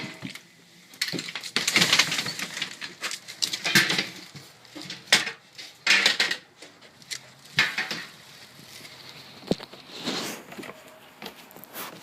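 Footsteps and rustling of a person walking a dog, with irregular scuffs and light clinks.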